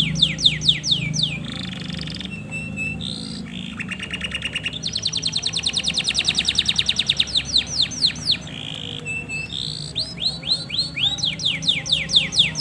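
Male canary singing: runs of quick downward-sweeping whistled notes, several a second, then a short rapid trill and a long fast buzzing roll in the middle, after which the sweeping notes return.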